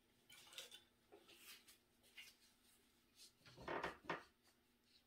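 Quiet handling noise: faint soft rustles, then a brief louder rustling rub about three and a half seconds in, as latex-gloved hands reach in with a wooden skewer.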